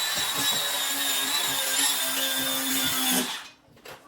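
Power tool motor running with a steady high whine, used on wood during cabinet installation, then cutting off a little over three seconds in.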